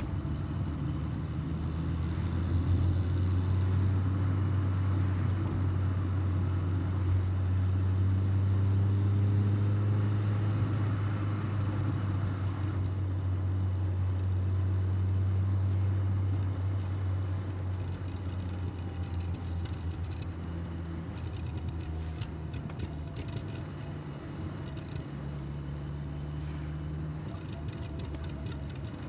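1984 Volkswagen Golf Mk2's carburetted four-cylinder engine running steadily under way, louder for the first half, then easing off to a lower, quieter note about halfway through. A few faint ticks come in near the end.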